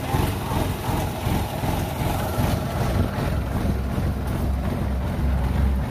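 Farm machinery diesel engine running steadily, with a deeper, heavier low rumble setting in about three seconds in.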